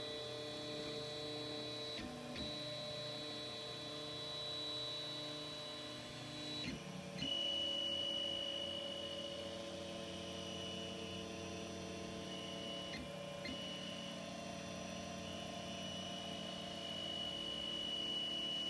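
3D printer's stepper motors whining with several steady tones while it prints a long, thin strip. The pitch jumps to a new note every few seconds as the move changes.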